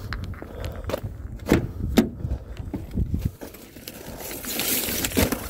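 Scattered knocks, clunks and footsteps of people handling gear, over a low rumble that stops about three seconds in, followed by a brief hiss near the end.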